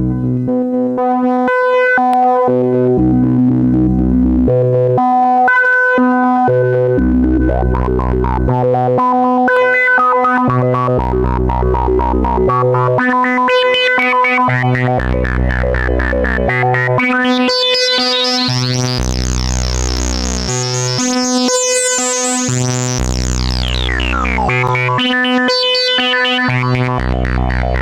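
PAiA Fatman analog synthesizer playing a repeating sequenced bass line, deep notes alternating with higher ones every second or two, run through added effects. About eighteen seconds in, a bright sweep rises high and holds, then falls back a few seconds later.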